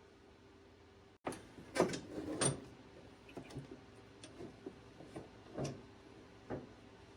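Faint steady hum, then after a brief dropout about a second in, irregular knocks, clinks and clatters of metal parts and tools being handled, loudest in a short cluster just after the dropout and sparser afterwards.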